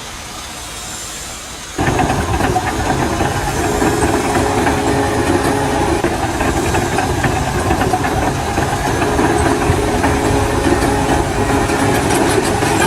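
Machinery noise: a quieter hiss, then about two seconds in a loud, steady mix of hiss and engine hum.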